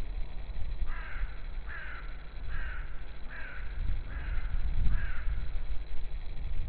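A crow cawing six times in a row, about one caw a second, each caw short and falling in pitch, over a steady low rumble.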